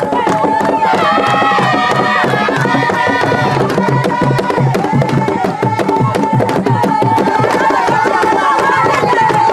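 Group chanting over fast, steady hand drumming: a ritual drum-and-chant calling the forest spirits to bless a girl's initiation.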